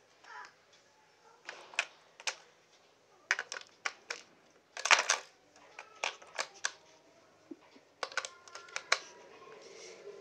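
AA batteries being pressed into the plastic battery tray of a Nerf Elite Stryfe blaster: a string of separate clicks and knocks, the loudest about five seconds in.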